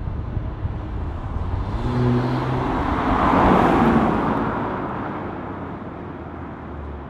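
2020 Toyota Supra with an AWE Tuning aftermarket exhaust accelerating away, its note rising in pitch and loudest about three and a half seconds in, then fading as the car pulls off into the distance.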